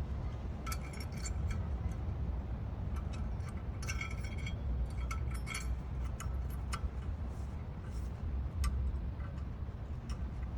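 Thin steel brake pad clips being handled and pressed into the caliper bracket, giving irregular light metallic clinks and taps, each with a short ring, over a steady low rumble.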